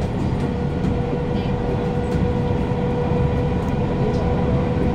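Kawasaki Heavy Industries C151 metro car running at steady speed, heard from inside: continuous rumble of the wheels on the track, with a steady whine from the car's GTO-VVVF traction motors.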